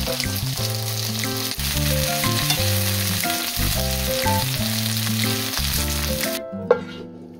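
Green onions, onion and garlic sizzling in oil in a frying pan, with metal tongs moving through the vegetables. The sizzling cuts off abruptly near the end, and a light tune with a bass line plays under it throughout.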